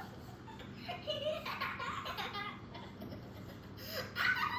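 A baby laughing in several bursts, played as a sound effect.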